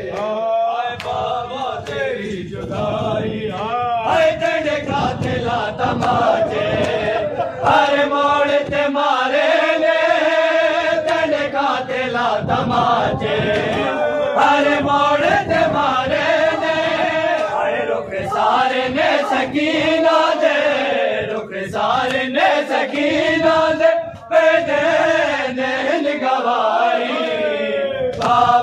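Men's voices chanting a Punjabi noha, a Shia mourning lament, led by a reciter and taken up in chorus, over repeated sharp slaps of hands beating on chests (matam).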